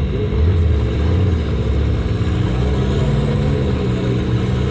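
Rock-crawling buggy's engine running at low revs under load as it climbs a boulder, the revs rising and falling slightly.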